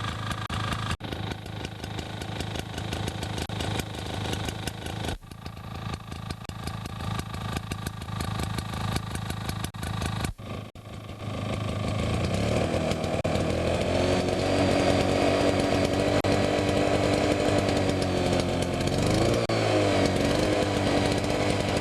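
Toro lawnmower's two-stroke Suzuki engine running at a lower speed, then revving up about halfway through and holding at its top speed, with a short dip and recovery near the end.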